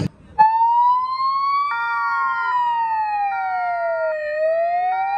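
Ambulance siren: a slow wail rising and falling in pitch, overlaid with a two-tone hi-lo pattern that switches about once a second. It cuts in suddenly just under half a second in.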